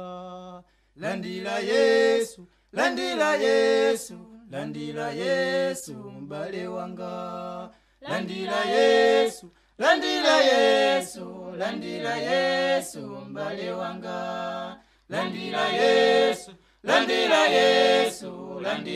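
Unaccompanied voices singing a gospel song in short phrases, each broken off by a brief pause.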